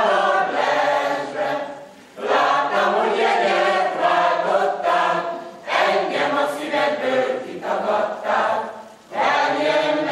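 Mixed choir of men's and women's voices singing a Hungarian folk song unaccompanied, in sung phrases of a few seconds with short breaks for breath between them.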